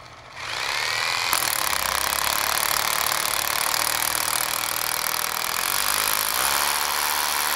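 Electric drill with a masonry bit boring into a stone boulder. The motor spins up with a rising whine about half a second in, then runs steadily as the bit cuts into the stone.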